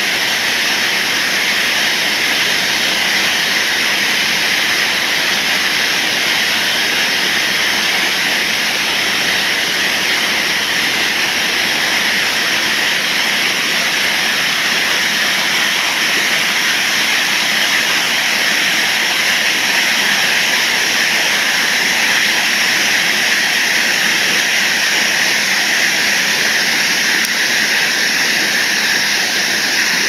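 Water pouring over a low weir: a loud, steady rushing without let-up.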